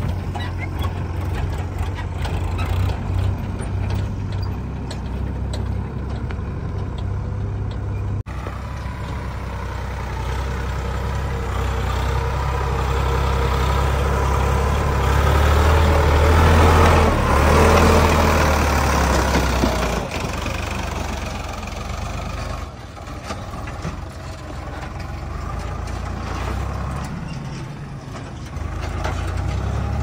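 Sonalika 42 DI RX tractor's diesel engine running under load as it hauls a trailer full of soil: a steady low engine rumble that grows loudest about halfway through as the tractor comes close. The sound breaks off abruptly twice.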